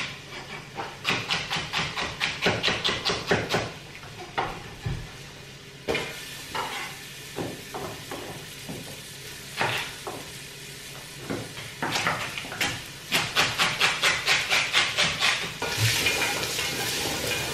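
A kitchen knife chops celery on a wooden chopping board in two quick runs of strokes, with single cuts between. Beneath it, onion sizzles steadily as it fries in oil in a steel pot. Near the end a wooden spoon stirs the pot.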